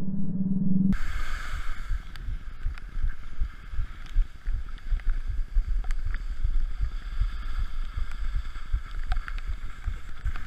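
Skis sliding and scraping over packed snow at speed, with wind rushing over the action camera's microphone: a rough, steady rush with low rumble and scattered clicks. A muffled hum before it cuts off suddenly about a second in.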